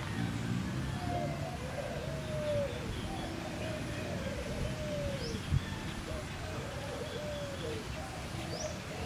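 A bird calling over and over from the trees, each call a short low note that falls in pitch, repeated about every second and a half, over a steady low rumble. A single sharp knock sounds a little past halfway.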